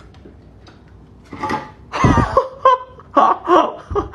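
A person laughing in several short bursts, starting about a second and a half in.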